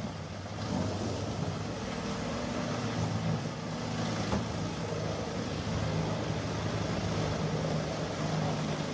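The diesel engine of an HG6800TX horizontal tree shredder running steadily, a low engine hum under a broad mechanical noise, its pitch shifting slightly about halfway through.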